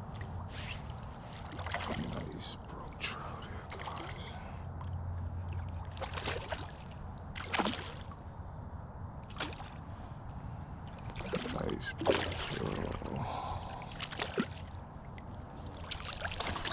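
Hooked brook trout splashing and thrashing at the surface of a stream as it is played to a landing net, an irregular run of sharp splashes over a steady low rumble.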